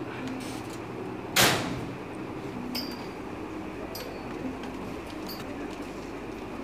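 A metal school locker door shutting once, sudden and loud, about a second and a half in, over a steady low hum.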